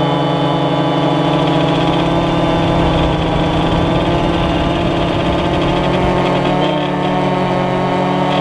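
AirDog follow-me quadcopter's electric motors and propellers running steadily, heard close up from the drone's own camera: an even multi-tone hum over a rough, fluttering low rumble.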